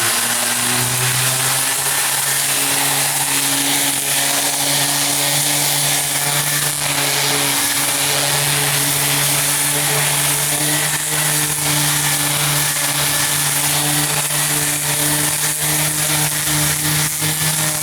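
Orbital sander with a 40-grit disc running steadily against the surface: a constant motor hum under a loud, gritty sanding hiss, smoothing out rough spots.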